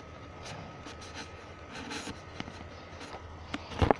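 Faint steady hum with a thin steady whine, light scattered clicks and handling noise, and a sharper knock just before the end.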